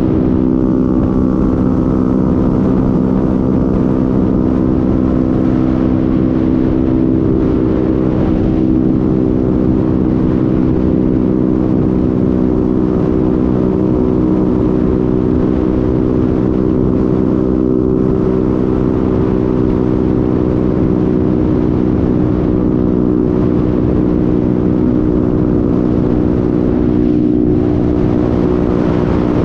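Honda MetRuck scooter's small engine running at a steady cruising speed, holding one even pitch, with wind noise rushing over the helmet-mounted camera.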